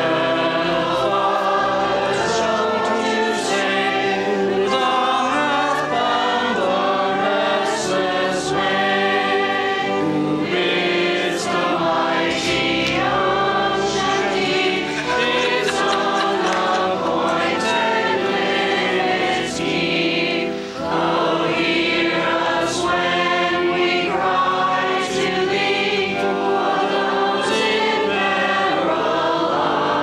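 A choir singing a hymn, many voices holding long notes, with a short break between lines about twenty seconds in.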